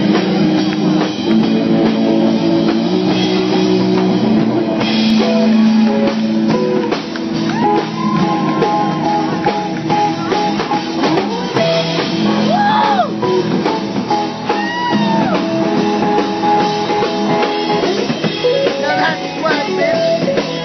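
A rock band playing live: guitars over a drum kit, with some singing.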